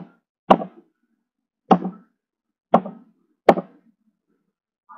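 Computer keyboard keys struck one at a time while typing a short five-character code: about five sharp, separate taps at uneven intervals.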